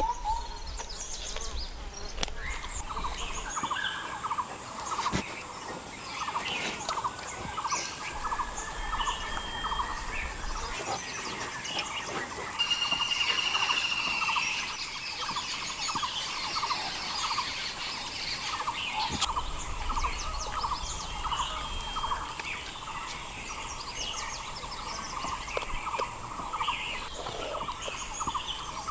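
Forest birds chirping and calling, with one call repeated a few times a second, a brief whistled note about halfway through, and a steady high insect whine.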